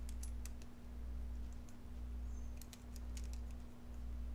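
Scattered light clicks and ticks of a small wired reset button and its hardware being handled inside a generator's control panel, over a steady low hum that swells about once a second.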